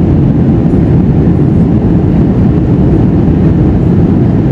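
Steady cabin noise heard from a window seat of an Airbus A321 in descent: the engines and the airflow over the fuselage blend into an even, deep rumble, loudest at low pitch.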